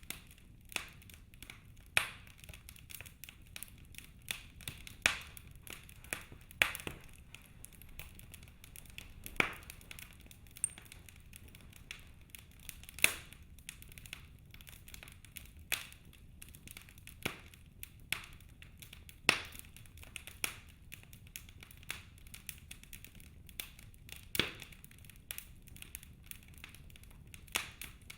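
Wood fire in a fireplace crackling, with irregular sharp pops every second or so over a faint low hiss.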